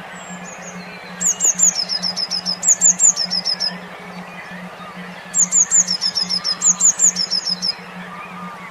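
A songbird sings two loud phrases of rapid, repeated high notes that slide downward, the first about a second in and the second about five seconds in, over faint chirping. Underneath runs a low hum pulsing about four times a second, the brain-wave therapy tone meant to get stressed songbirds singing again.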